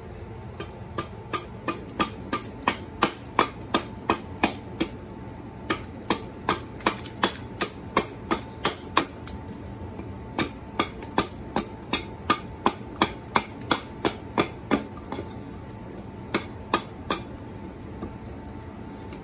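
Husqvarna carpenter's axe chopping into the end of a pine board on a log chopping block while roughing out a spoon blank: sharp knocks, about two or three a second, in runs with a few short pauses, stopping a couple of seconds before the end.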